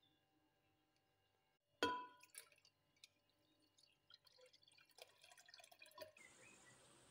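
Thick cream pouring and dripping from a carton into a glass bowl, quiet, with one sharp glass clink about two seconds in and small wet ticks after it. A steady background hiss starts about six seconds in.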